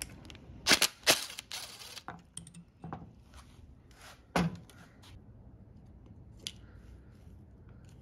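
Sharp clicks and knocks of small carburetor parts being handled as the float bowl comes off a pressure washer carburetor: two loud clicks about a second in, lighter ticks, then one solid knock at about four and a half seconds.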